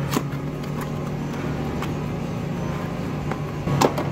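A steady low hum with a few light clicks and taps as a cardboard parts box is opened and an ignition coil pack is taken out; the sharpest tap comes near the end.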